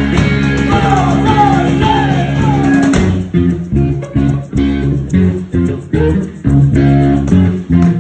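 Live emo/math-rock band playing loud: electric guitar, bass guitar and drum kit. About three seconds in, the full sound breaks into choppy stop-start hits with short gaps between them.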